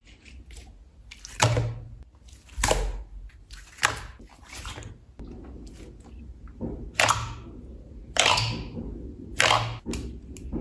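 Clear slime being pressed and pulled by hand, giving a string of sharp pops and crackles about once a second, some trailing off in a short hiss.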